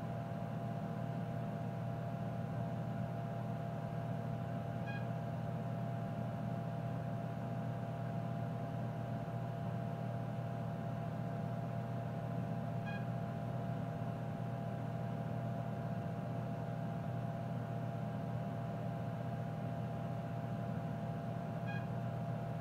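Steady electrical and fan hum of a running Tektronix 4054A computer, with three short high beeps about eight seconds apart as the test program moves between display tests.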